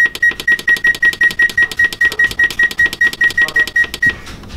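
Oven's digital control panel beeping rapidly, about four to five short identical beeps a second, as the temperature button is held and the bake setting steps down toward 200°. The beeping stops about four seconds in.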